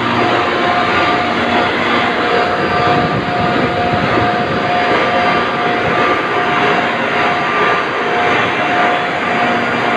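Refrigeration compressors and their large electric drive motors running in an ice plant machine room: a loud, steady mechanical din with faint steady whining tones on top.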